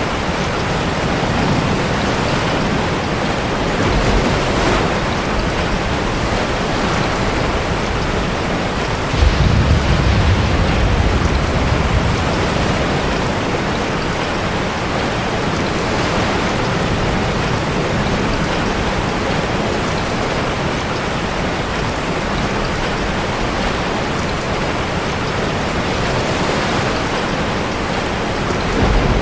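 Steady downpour of rain mixed with heavy surf breaking in a sea cave, a continuous loud rushing. About nine seconds in a deep low rumble swells for a few seconds.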